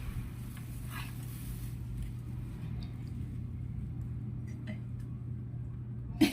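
Furniture parts being handled during assembly: a few faint clicks and taps, with one sharper knock near the end, over a steady low hum.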